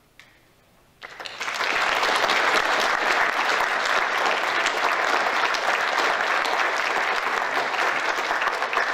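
Audience applauding, breaking out about a second in and holding steady, at the end of a trombone quartet piece.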